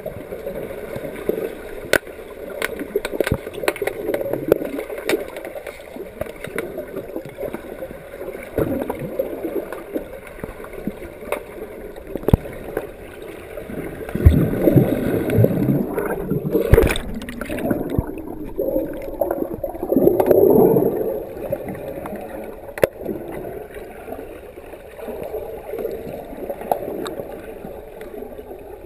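Underwater sound of an underwater hockey game, heard through a submerged camera: a muffled rushing wash of water and bubbles with many sharp clicks and knocks of sticks and puck on the pool floor. It grows louder for a few seconds about halfway through, and again a little later.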